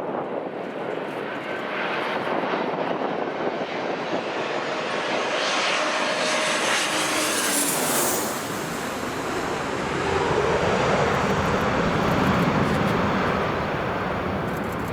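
Jet airliner passing close by, its engines running with a rising whine that peaks about eight seconds in, then a deeper rumble. Strong wind is buffeting the microphone.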